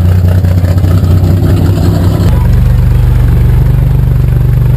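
Race-vehicle engine idling loudly with a deep, steady rumble; about two seconds in the rumble shifts to a different, steadier pitch.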